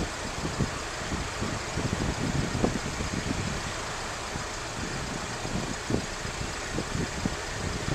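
Road traffic: vehicle engines idling and moving slowly, with irregular low rumbles.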